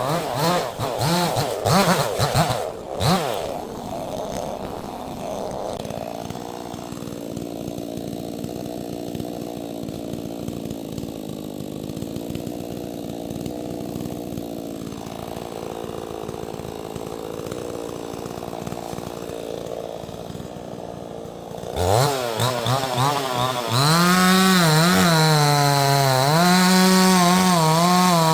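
Neotec 68cc two-stroke chainsaw, first running quietly at low revs. About 22 seconds in it is throttled up to a loud, high-revving run, with its pitch dipping and recovering as it works under load in wood.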